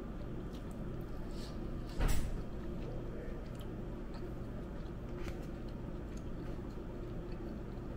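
Steady low room hum with scattered light clicks, and one louder knock about two seconds in.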